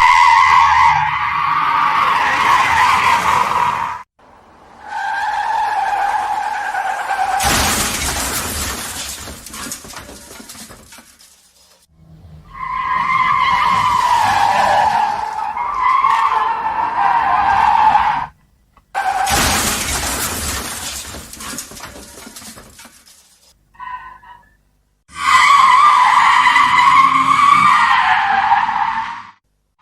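Car tyres screeching in long skids, each skid ending in a sudden loud crash that dies away over a few seconds. The crash comes twice, about a third and about two-thirds of the way through, and a final screech near the end breaks off without a crash.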